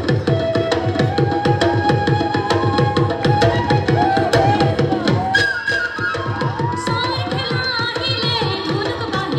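Live folk dance music: a drum plays rapid strokes that each bend down in pitch, about four a second, under a melody line. About halfway through, a higher, wavering melody comes in on top.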